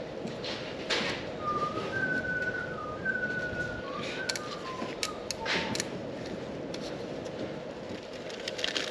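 A person whistling a short tune of a few held notes that step down near the end, with scattered light clicks and taps of small parts being handled.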